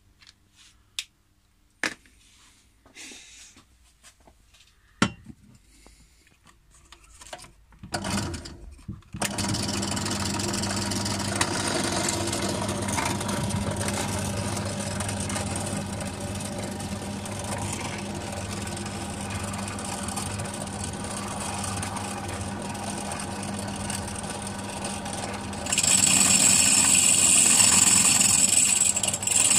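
Light clicks and knocks of a marker and a glass bottle being handled, then a drill press motor starts about nine seconds in and runs with a steady hum. Near the end a tube-shaped glass-drilling bit bites into the bottle's shoulder, adding a loud, high-pitched grinding.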